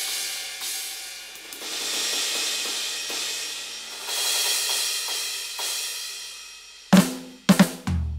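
Roland TD-17KVX electronic drum kit: three long cymbal washes, each swelling and then fading. About seven seconds in, sharp drum strikes with low kick thuds begin a groove.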